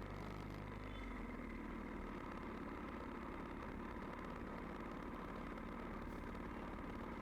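Motorcycle engine running steadily while riding uphill, its low note shifting about a second in.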